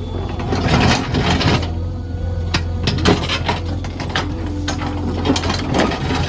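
JCB 3DX backhoe loader's diesel engine running steadily, with repeated, irregular metallic clanks and knocks from the working arm and bucket.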